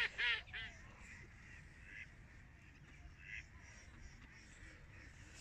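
Mallard ducks quacking: two loud quacks right at the start, then a few fainter calls now and then.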